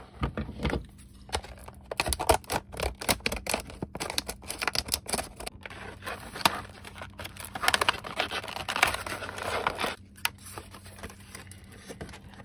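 Clear plastic blister pack being peeled open from its cardboard backing: stiff plastic crackling and crinkling with many sharp clicks, heaviest about eight seconds in.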